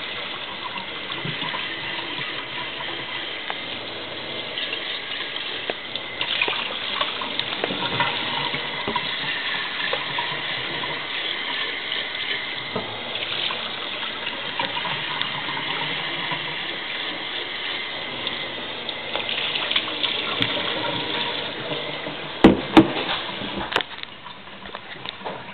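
Water running from a kitchen tap into a sink, splashing as coffee-maker parts are rinsed out. A few sharp knocks come near the end, and the running water stops just before the end.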